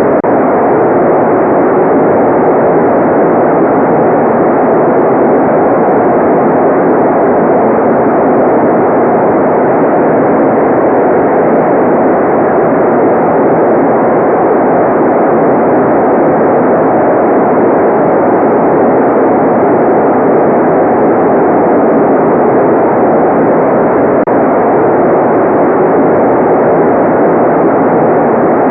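Steady synthetic white noise: a constant, even rushing hiss, muffled with its treble cut off, with no change or break.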